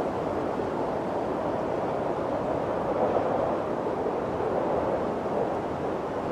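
Snowstorm wind blowing steadily, a rushing that swells and eases slowly.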